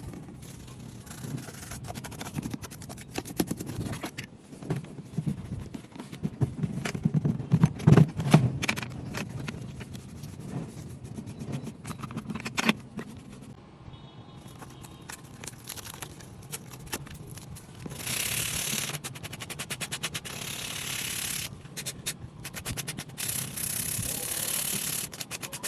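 Hand work on an antique metal box: a run of sharp clicks, taps and scrapes, loudest about eight seconds in, then two stretches of steady scrubbing hiss in the later part.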